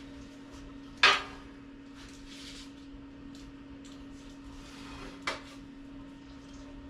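Workshop handling noises while steel is measured: one sharp clack about a second in and a lighter knock near five seconds, with faint rustling, over a steady hum from the shop heater.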